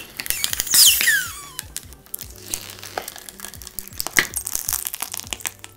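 A slime-soaked block of jelly cube (cut magic-eraser sponge) being pulled apart by hand, with sticky crackling, popping and plastic-wrap crinkling and a loud falling squeal about a second in. Background music plays underneath.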